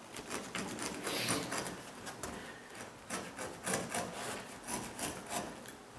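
A fixed-blade carpet knife (a Bloody Mary knife) cutting through carpet in a series of short scratchy strokes, which come more often in the second half.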